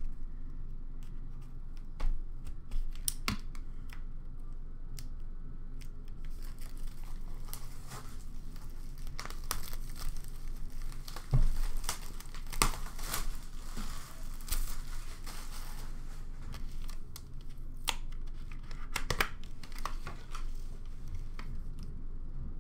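Wrapping being cut and torn off a sealed hockey card box, crinkling and tearing in irregular spurts, with a few knocks and a thump as the box is handled.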